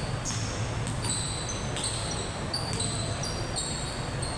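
Basketball play on an indoor court: sneakers squeaking again and again on the floor and the ball bouncing a few times in the first couple of seconds, over the steady din of the hall.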